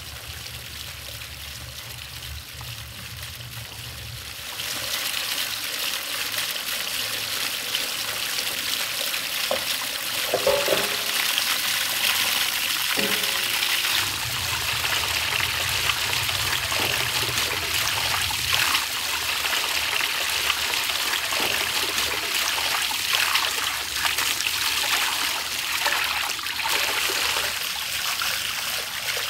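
Water running and splashing steadily over a stacked-stone fountain, coming in louder about four seconds in.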